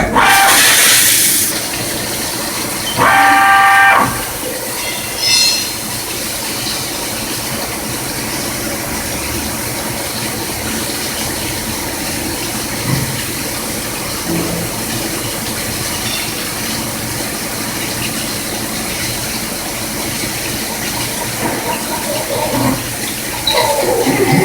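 CNC machining center running with a steady hum and fixed whining pitches. It starts with a brief hiss, and about three seconds in a loud, high pitched whine lasts for about a second.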